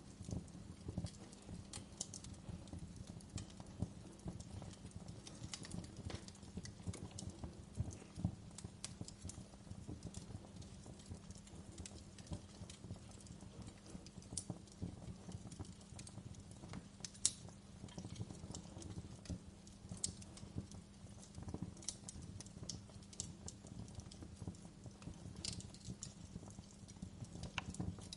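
Fireplace fire crackling: a steady low rumble of burning wood with irregular small pops and snaps scattered throughout.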